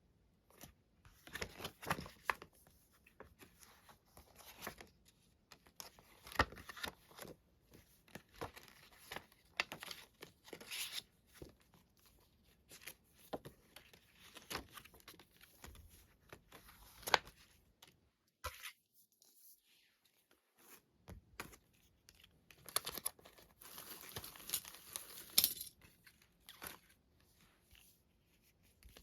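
Packaging being torn open and crinkled by hand in irregular bursts, with a short pause about two-thirds of the way through.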